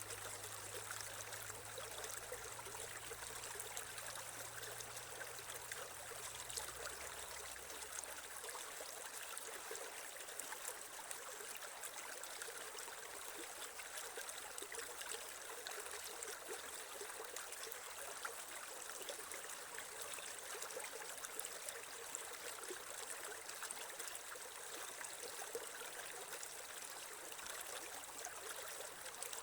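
Creek water running steadily, a continuous rushing and trickling.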